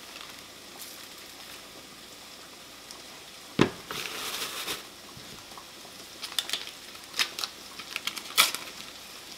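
Paper wrappers being peeled off sticks of butter, crinkling and rustling in short crackly bursts, the loudest near the end. A single thump about three and a half seconds in as an unwrapped stick is set down on the cutting board.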